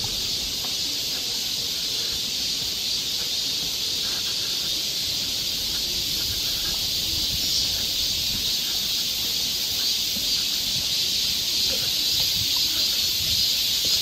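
Chorus of cicadas: a steady, high buzzing drone that swells a little around the middle and again near the end.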